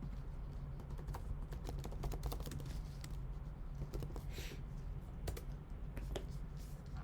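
Typing on a computer keyboard: irregular runs of short key clicks over a steady low electrical hum.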